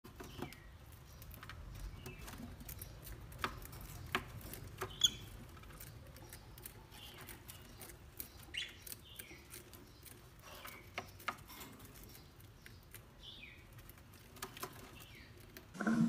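Caged rosy-faced lovebirds, quiet: a few short, falling chirps now and then among scattered light clicks and taps.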